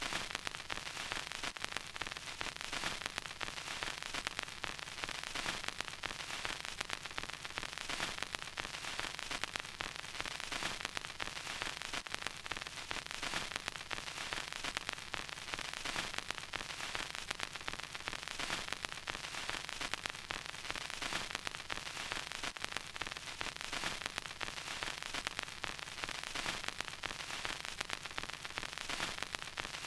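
Vinyl record surface noise: steady hiss with dense, irregular crackles and pops from the stylus in the groove.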